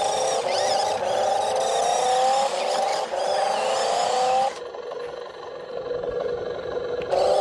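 Small electric drive motor of a 1:14 RC stunt monster truck whining and rising in pitch over and over in short runs of about a second as it is throttled up. About four and a half seconds in it drops to a quieter, rougher running noise.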